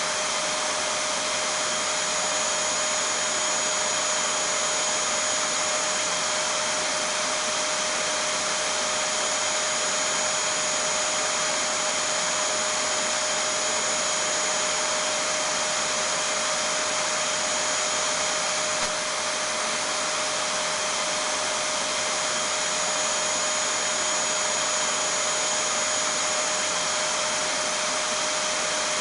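Vacuum cleaner (hoover) motor running continuously: a steady rushing whoosh with a constant high whine. There is a small click about two-thirds of the way through.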